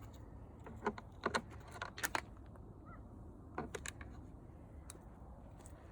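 A handful of light, sharp clicks and taps, clustered in the first four seconds, over a faint steady hum: small hard objects being handled.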